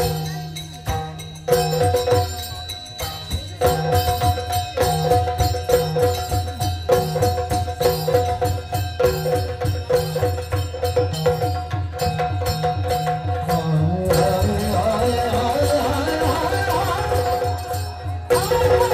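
Yakshagana ensemble music: drums beat a steady rhythm over a held drone. Near the end the drumming gives way to a melody line that wavers and bends in pitch, then the drums come back in.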